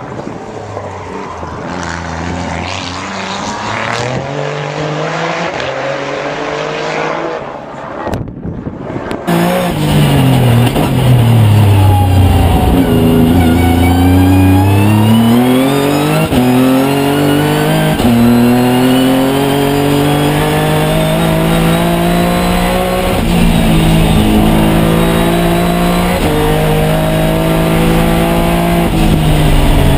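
Nissan GT-R R35 race car's twin-turbo VR38DETT V6 at full racing effort up a mountain hillclimb. It is heard first from the roadside as the car climbs a bend, then, after a brief drop-out, loud from inside the cockpit, revving up through the gears and dropping in pitch on lift-off into corners.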